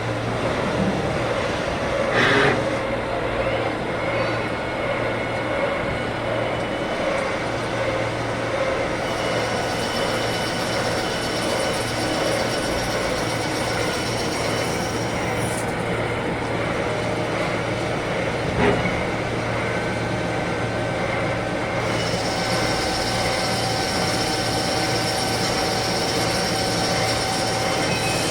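CNC lathe running while machining parts: a steady hum under a machine whine whose tones change twice, with a couple of brief sharp clicks.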